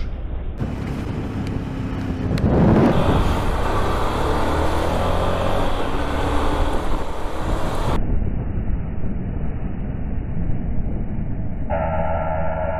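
A loud rushing transition effect swells about two seconds in. Then comes motorcycle engine and road noise from a ride in traffic, and a car horn starts sounding steadily near the end.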